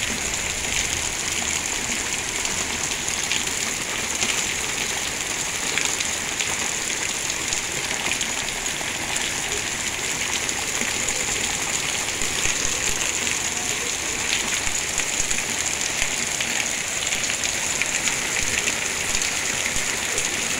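Hail falling hard on a backyard patio and lawn: a steady, dense hiss made of countless tiny ticks as hailstones strike the concrete, grass and a patio table.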